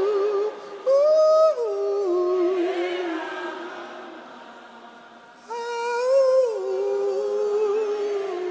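Slow worship melody: one sustained, wavering lead line with wide vibrato and sliding notes, played or sung in two phrases that fade away between them.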